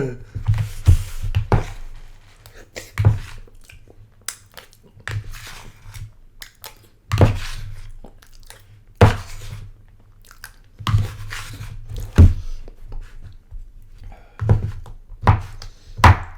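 Eating sounds from a microwaved frozen dinner: irregular knocks and scrapes of a utensil in the meal tray, with low thuds every second or two.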